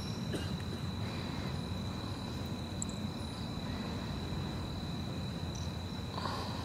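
Night crickets singing one steady, unbroken high-pitched tone over a continuous low rumble of background noise.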